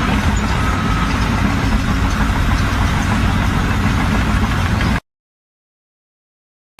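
An engine running steadily with a dense low rumble, which cuts off abruptly about five seconds in, leaving dead silence.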